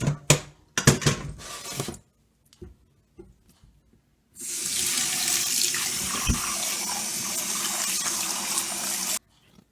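A few sharp knocks and clatters, then a kitchen tap running steadily into a sink for about five seconds before it is shut off abruptly.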